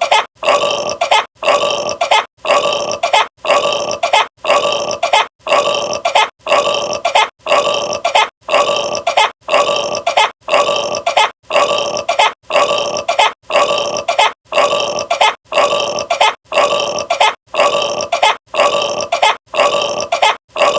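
A burp sounding over and over at an even pace, about once a second, each one alike, like a single burp sound repeated on a loop.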